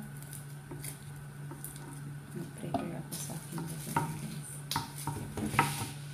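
Kitchen knife and utensils being handled, giving a series of short sharp taps and clinks that come thicker and louder in the second half, over a steady low hum.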